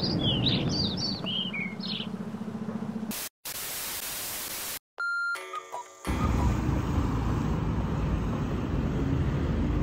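Small birds chirping over outdoor background noise, then about a second and a half of loud hissing static as a camcorder-style transition effect, a short steady electronic beep with a few fainter blips, and then steady outdoor background noise.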